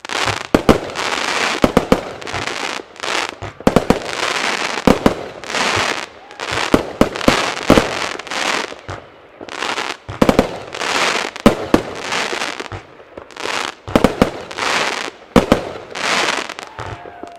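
Bonfireworks/Geisha Triple Thunder Stars crackling firework battery firing a salvo. About once a second comes a sharp bang, and each bang is followed by a dense crackling hiss from the bursting crackling stars.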